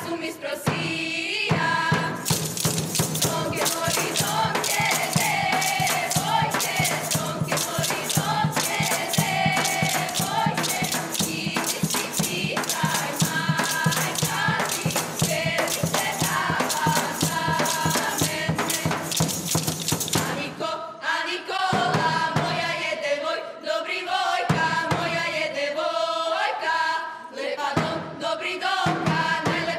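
A folk choir of young women, with a young man among them, sings in unison to rapid clacking of wooden spoons and the jingle of tambourines. The spoon clatter is dense until about two-thirds of the way through, then mostly drops away, leaving the voices with only a few clicks.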